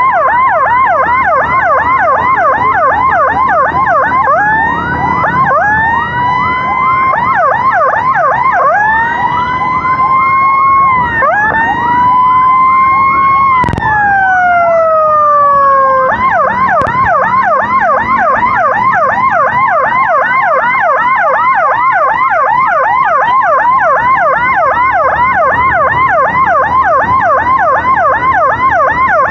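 Electronic emergency sirens. A fast yelp sweeps up about four times a second throughout. From about four seconds in, a second siren joins with slow rising wails. Just before the middle there is a click, and that wail falls away, leaving the fast yelp alone.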